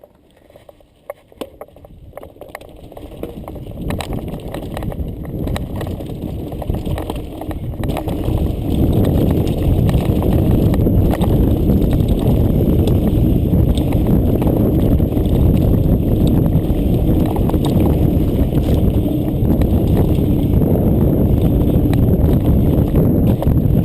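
Mountain bike rolling down a rocky cobbled trail, its tyres, frame and parts rattling and knocking over the stones. It starts quiet with a few separate clicks, grows louder over the first eight seconds or so as speed builds, then runs on as a steady loud rattle.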